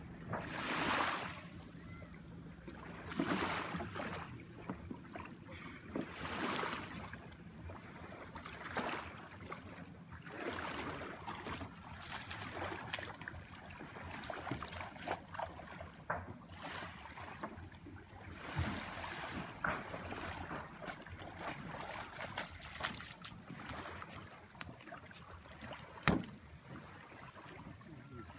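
Shallow water splashing and washing around a wooden outrigger dugout canoe as it is paddled in and hauled ashore. The water sound swells every few seconds at first, then gives way to many small splashes and knocks, with one sharp knock near the end.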